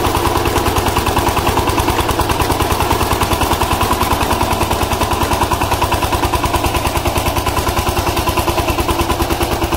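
VST Shakti walk-behind power tiller's single-cylinder diesel engine running steadily under load with a rapid, even, hard exhaust beat as its rotary tines churn through soil.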